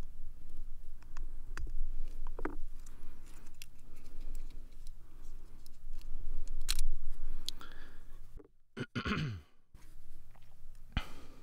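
Small clicks, taps and scrapes of a plastic spudger and fingers handling a small circuit board, the loudest cluster about two-thirds of the way through. A brief sound falling in pitch follows near the end.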